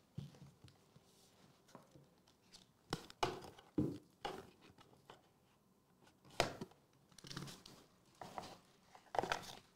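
Cards and paper being handled: irregular rustling with a few sharp taps against plastic, the loudest about three seconds in, six and a half seconds in and near the end.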